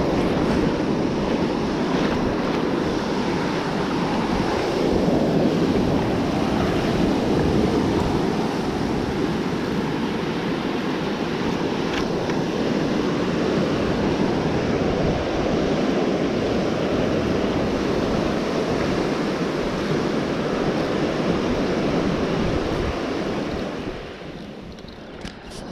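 Ocean surf breaking and washing up the beach, mixed with wind buffeting the microphone. The noise drops off sharply near the end.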